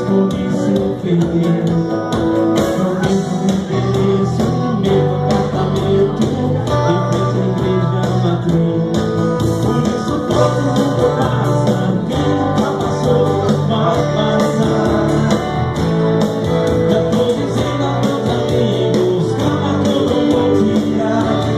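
Sertanejo pop song played by a band, mostly instrumental: guitar over bass and a steady drum beat, with a little singing.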